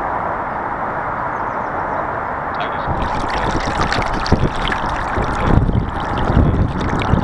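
Water sloshing against the hull of a small robot sailing boat, picked up by a camera on board. From about three seconds in, a gust heels the boat over and wind buffets the microphone in irregular rumbling blasts.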